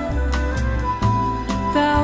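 Background music with a steady beat under held melody notes and a bass line.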